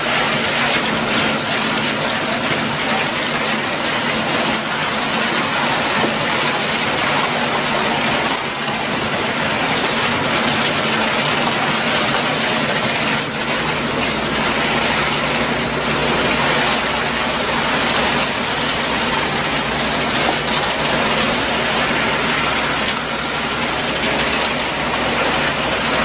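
Steady engine noise of a concrete pump truck running during the pour, with a deeper low rumble coming in about halfway through.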